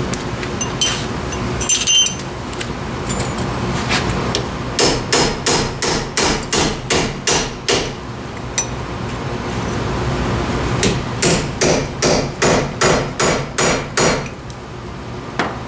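Hammer blows on metal, working loose a rusted, stubborn wheel hub assembly, most likely driving a chisel. A few single strikes, then two quick runs of about a dozen blows each, roughly three a second, with a short pause between.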